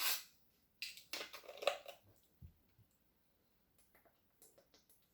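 Close-up crunches and crackles from handling and eating food: a sharp burst at the start, a cluster of crunchy sounds about a second in, then a few faint clicks near the end.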